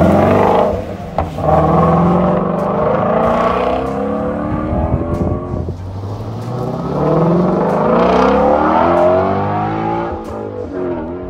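Ford Shelby GT350 Mustang's 5.2-litre flat-plane-crank V8 accelerating hard, its note climbing in pitch through the gears. There are two long climbs, the second starting about six seconds in, and the note falls away and fades near the end.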